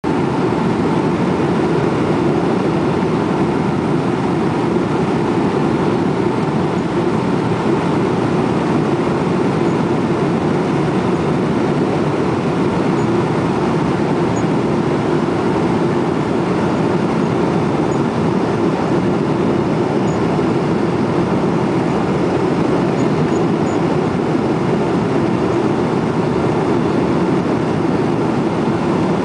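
Steady low rumble of a Boeing 777's GE90 turbofans and the airflow around the airframe, heard inside the cabin on final approach with the flaps extended.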